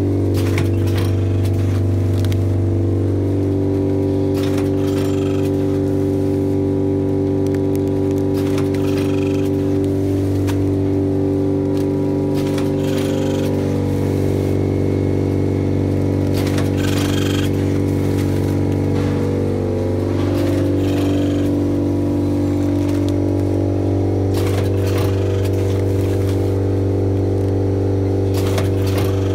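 Automatic powder packing machine running: a loud, steady motor hum with short clacks and rustles every couple of seconds as it cycles through filling and sealing bags.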